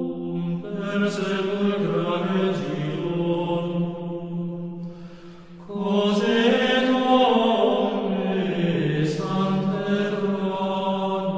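Slow sung chant, in Latin plainchant style: a voice holding long notes that step up and down, with a short breath pause about five seconds in.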